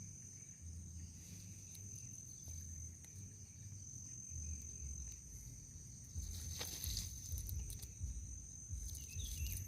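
A steady high-pitched insect trill, like crickets, with low wind rumble on the microphone and a few faint clicks and knocks in the second half.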